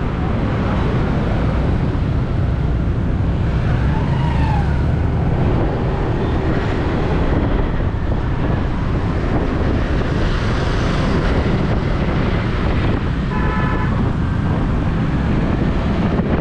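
Steady street traffic noise with a heavy low rumble and a brief horn toot about 13 seconds in.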